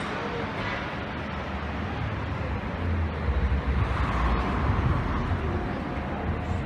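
Street traffic noise: a steady hum of the street, with the low rumble of a passing vehicle swelling about three seconds in and easing near the end.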